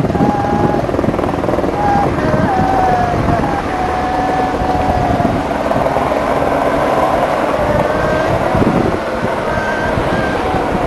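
Wind buffeting the microphone in gusts, over a distant engine drone that wavers up and down in pitch.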